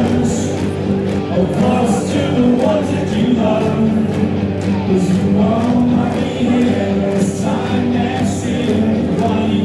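A rock band playing live through a loud PA, with guitars, drums and singing.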